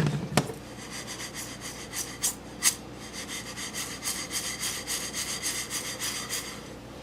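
Red lentils being stirred while they dry-roast in a pan: a utensil scraping the pan, with the lentils rasping against it and a few sharp clicks.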